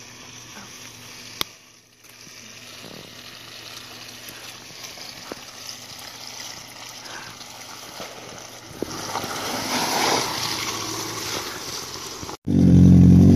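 Lifted Subaru Forester's flat-four engine running at low speed while its tyres slosh through mud and puddles, growing louder as it comes close about two-thirds of the way through. Near the end the sound cuts abruptly to a much louder engine running close by.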